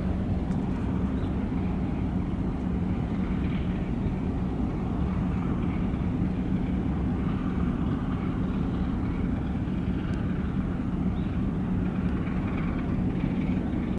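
Steady low machinery drone with a constant hum, unchanging in level.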